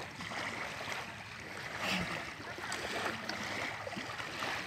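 Small lake waves lapping on a sandy shore, a steady wash of water with faint splashes.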